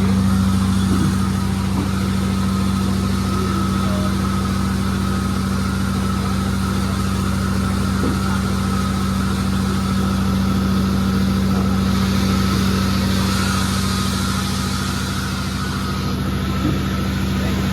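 Sawmill's power unit running steadily, a constant low hum.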